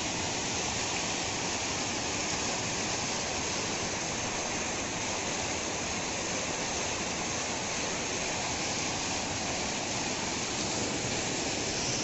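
Waterfall sheeting down a rock face and splashing onto the rocks below: a steady, unbroken rush of water.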